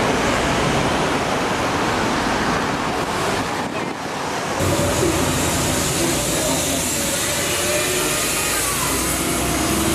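Busy city street ambience: a steady wash of road traffic with faint crowd voices. The sound changes abruptly about four and a half seconds in, after which some faint engine hum comes through.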